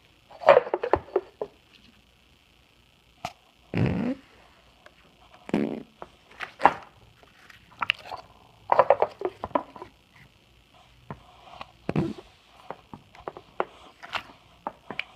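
Slime squeezed and pressed in the hands, giving a series of irregular, wet fart-like squelches, some short and crackly, a few longer and deeper.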